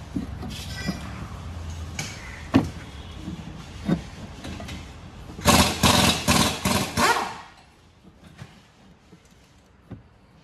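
Vacuum brake booster of a Chevrolet Tavera being pulled off the firewall by hand: scattered knocks and clunks, then about two seconds of loud rattling and scraping as it comes free.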